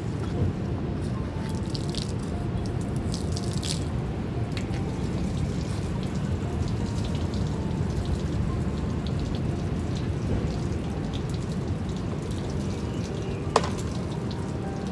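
Water from a garden hose splashing and dripping on a truck and wet pavement, with scattered small drip clicks over a steady low rumble. One sharp click near the end.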